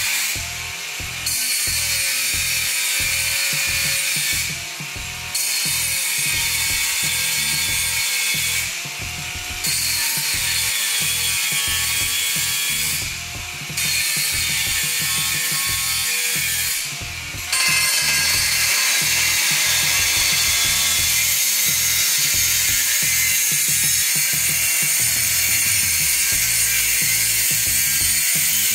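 Einhell TE-AG 18/115 Li cordless angle grinder with a 115 mm kwb inox cutting disc cutting through a metal tube. It makes a series of short cuts of three to four seconds each, with brief lulls between them as the disc lifts out of the metal. From a little past halfway it makes one long cut of about ten seconds.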